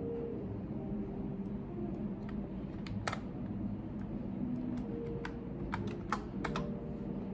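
Typing on a computer keyboard: scattered, irregular key clicks with a few sharper keystrokes, over a steady low room hum.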